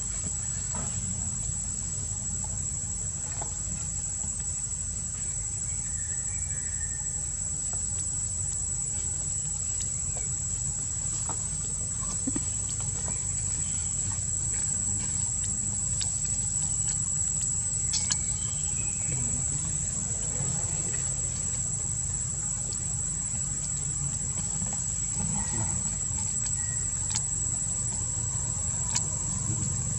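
Steady high-pitched drone of an insect chorus, over a low background rumble, with a few light scattered clicks.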